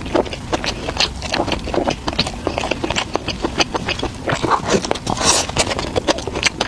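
Close-miked eating sounds: rapid, irregular crunching and smacking as a person chews crisp food.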